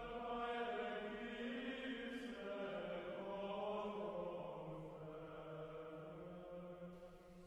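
Soft choral chant: voices holding long notes that shift slowly in pitch, fading near the end.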